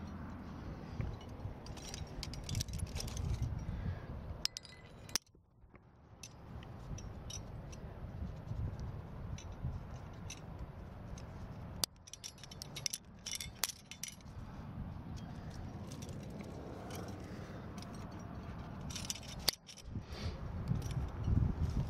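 Aluminium climbing carabiners and gear on a harness rack jangling and clinking as a sling is clipped to protection, in several clusters of clinks: about two seconds in, around twelve to fourteen seconds in, and near the end. A low rumble of handling noise runs underneath.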